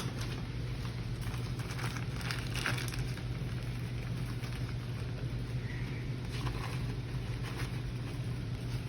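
Brown sugar being scooped and packed into a measuring cup: faint scraping and crinkling strokes, busiest in the first few seconds, over a steady low hum.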